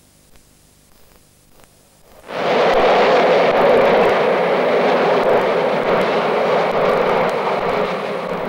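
After about two seconds of faint hiss and crackle, the loud rushing noise of an underground metro train cuts in suddenly and runs on steadily, easing slightly near the end.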